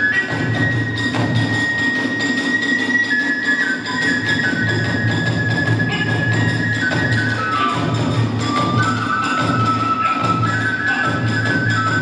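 Live kagura music: a high bamboo flute playing a held melody that moves in steps, over rapid, steady drumming.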